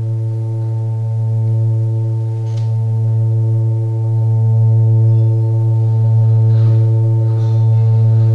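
Yamaha DX7 FM synthesizer playing an ambient pad: a held chord with a deep low note under several higher held notes, growing slowly louder.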